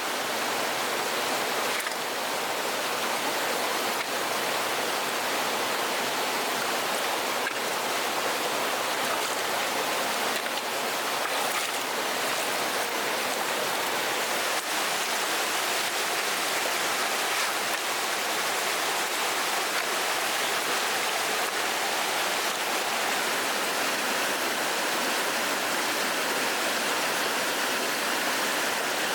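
Flowing water rushing steadily and evenly, like a stream after floods, with a few faint small clicks.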